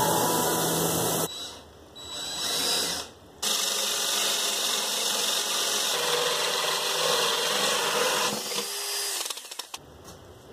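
Compressed-air spray gun hissing briefly, then after a cut a power drill boring a hole into a painted panel. It runs steadily for several seconds, then winds down with a falling whine and stops about nine seconds in.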